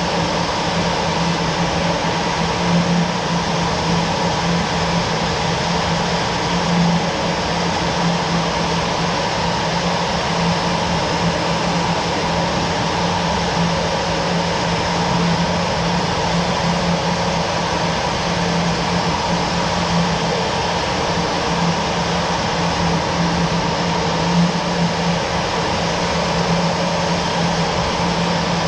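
Steady, unchanging drone of a jet aircraft: a strong low hum with a fainter higher whine over a wash of noise.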